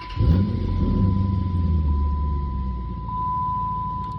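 Dodge Charger R/T's 5.7 L HEMI V8 being restarted: the starter cranks, the engine catches about a quarter second in with a brief flare in revs, then settles toward a steady idle. A thin steady high-pitched tone runs underneath.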